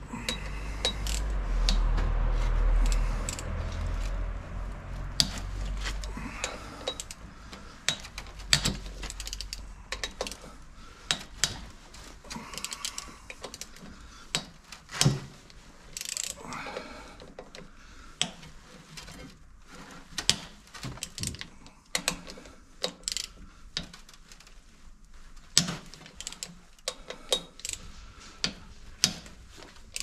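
Hand ratchet clicking in repeated short runs, with metal clinks of tools against steel, as bolts are worked at the flywheel hub of a Deutz DX90 tractor. A louder low rumbling noise fills the first six seconds or so.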